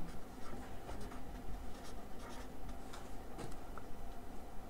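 Marker writing on lined notebook paper: a run of light, irregular scratching strokes as the words are written out.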